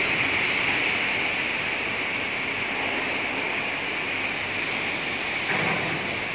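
Steady, even hiss of factory machinery noise, with a faint knock about five and a half seconds in.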